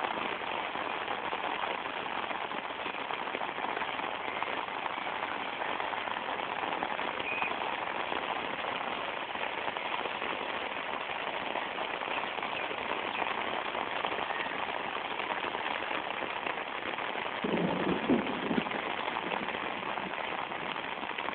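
Heavy rain falling steadily, an even hiss without a break. Near the end a brief louder sound rises over it for about a second.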